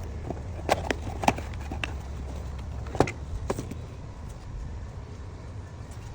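A series of sharp clicks and knocks of tools and parts being handled while the power steering filter insert is changed, over a steady low hum; the clicks bunch in the first few seconds and then stop.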